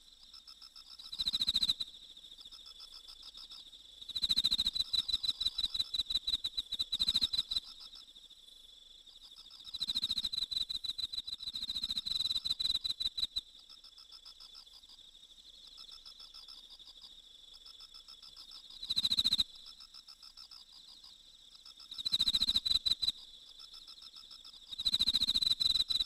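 Crickets chirping: a steady high trill, with louder bursts of rapid pulsed chirps every few seconds.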